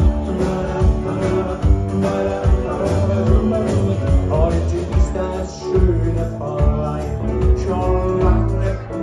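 Live band playing an upbeat song with guitar and a steady drum beat.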